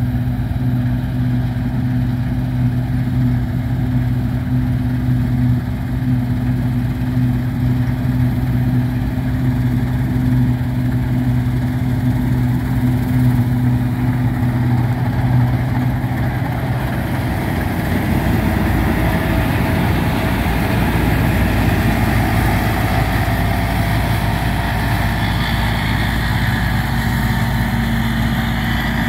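New Holland TX68 combine harvester running while harvesting barley, with a steady engine hum as it comes closer. About halfway through it passes close by, and the steady hum gives way to a broader rushing noise as it moves off.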